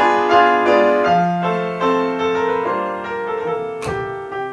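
Solo piano playing the instrumental interlude between sung verses: a melody over a moving bass line, notes changing about twice a second.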